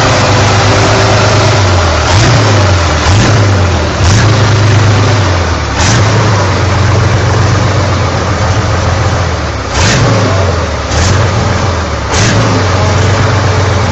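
A motorcycle engine running loud and revving, its pitch holding and then shifting up and down every second or two, with several sharp breaks in the sound.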